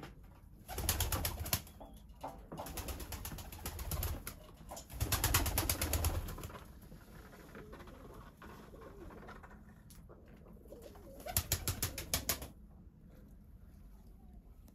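Pigeons clapping their wings in several short flurries of rapid, even wingbeats, each about a second long.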